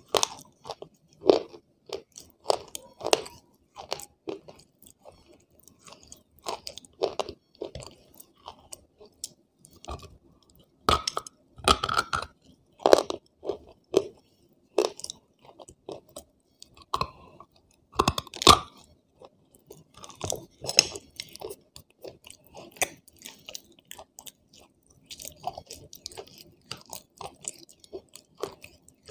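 Close-up crunching bites and chewing of a hard, chalky white block, an irregular run of dry crunches. The loudest crunches come in two clusters around the middle, and the chewing grows softer and sparser near the end.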